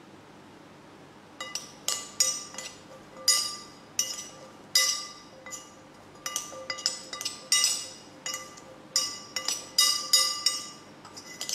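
Metal spoon clinking against a glass bowl while stirring chickpeas, in quick irregular strikes that each ring briefly, starting about a second in.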